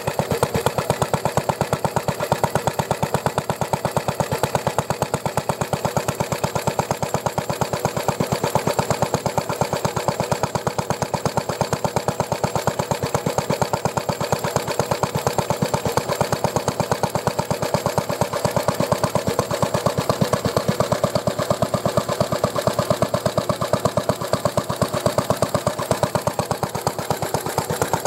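1937 Lister D single-cylinder stationary engine running steadily, with a rapid, even beat of firing strokes.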